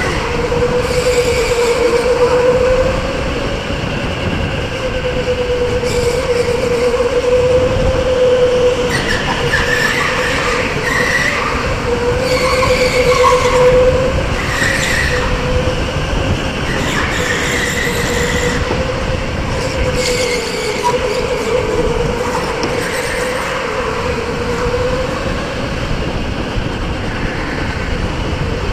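Electric go-kart motor whining steadily, its pitch drifting up and down with speed through the laps, with short tyre squeals in the corners and a low rush over the helmet-mounted microphone.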